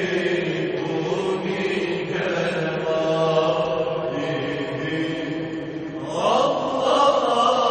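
Islamic religious chant sung in unison by a group of four male voices, with long held, ornamented notes that swell louder about six seconds in.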